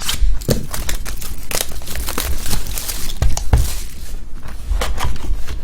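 Plastic packaging being torn open and crinkled by hand, a dense irregular crackle, as a hobby box of trading cards is unwrapped.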